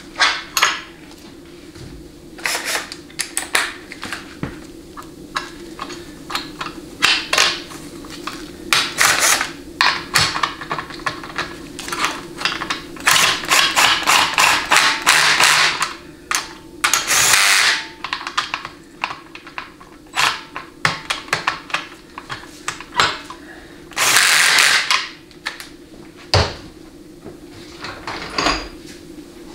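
Cordless drill/driver running bolts into a 700R4 transmission case in several short bursts, the longest a second or two, as the parking rod guide bolts are driven in and snugged up. Between the bursts, metal tools and parts click and clatter against the aluminium case.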